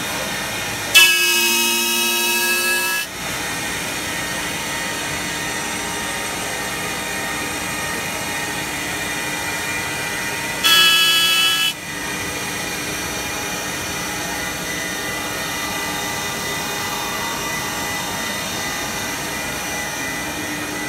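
CNC wood lathe running steadily while shaping wooden legs. Two louder, high-pitched cutting bursts come through: one about a second in lasting about two seconds, and a shorter one near the middle.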